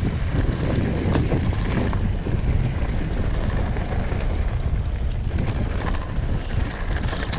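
Wind rushing over the microphone of a mountain bike rider on the move, with the bike rattling over a rough natural trail. The noise is loud and steady throughout.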